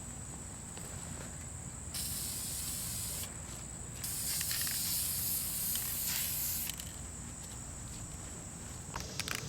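Aerosol can of spray urethane hissing in two bursts, a short one and then a longer one of about three seconds, as a coat is sprayed on.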